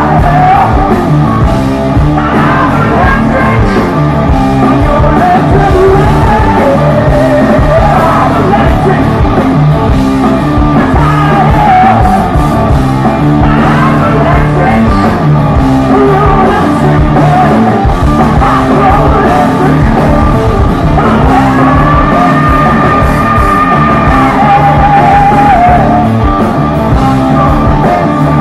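Rock band playing live at loud volume: a male lead vocal over electric guitar and drums, heard from the crowd.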